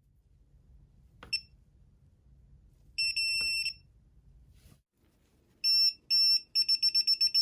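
Electronic beeps from a TONE handy digital torque adapter: a click with a short beep, a longer beep, two separate beeps, then rapid beeping at about five a second.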